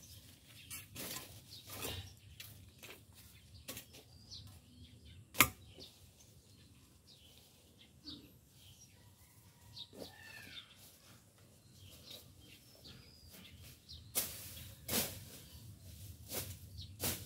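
Irregular swishes and scrapes of a hand tool cutting through tall grass and weeds, with one sharp knock about five seconds in and a quicker run of swishes near the end. Faint bird chirps sound in the background.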